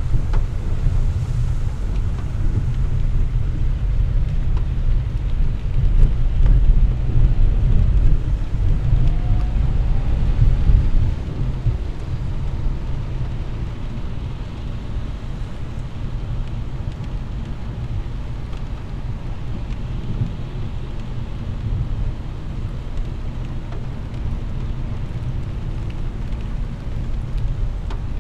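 Car driving on a wet road in rain, heard inside the cabin: a steady low rumble of tyres and road with a hiss of rain and spray. It is louder for the first ten seconds or so, then eases off.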